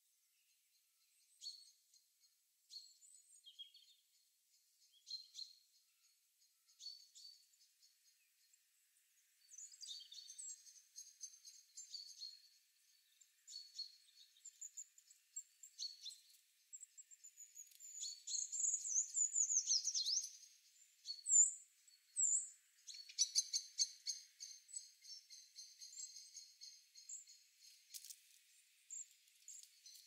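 Small birds chirping and singing in short high calls. The calls are sparse at first and build into a busier chorus from about ten seconds in, with a run of quick falling notes and a few louder calls near the middle.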